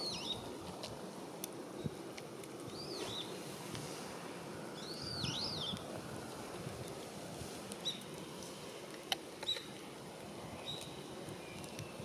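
Several short, high bird chirps, including a pair of rising-and-falling notes about five seconds in, over a steady low rush of river water.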